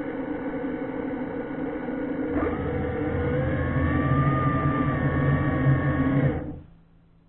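Electric thruster motors of an underwater ROV whining, several steady tones with one rising and falling in the middle, then cutting off about six and a half seconds in and leaving it nearly silent.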